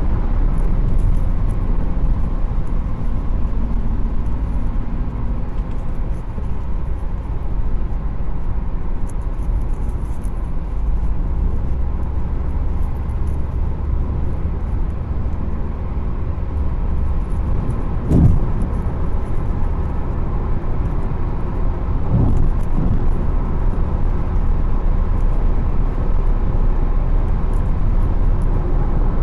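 Steady low road and engine rumble heard from inside a moving car's cabin, with two brief thumps about four seconds apart past the middle.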